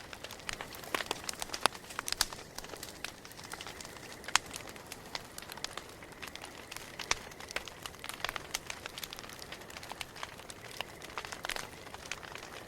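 Campfire burning: wood crackling with irregular sharp pops over a soft steady hiss, a few pops standing out louder around two and four seconds in.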